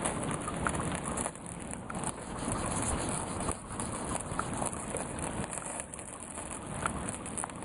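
Steady rain with scattered small ticks, and a burning pine sap candle sizzling as raindrops land in the hot sap.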